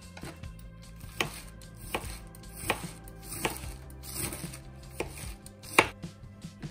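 Kitchen knife slicing white cabbage into thin shreds on a plastic cutting board. Each crisp cut ends in a sharp tap of the blade on the board, roughly every three-quarters of a second, with the loudest cut near the end.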